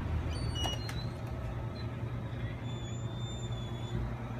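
Steady low rumble of a vehicle engine running, with a few faint high tones partway through.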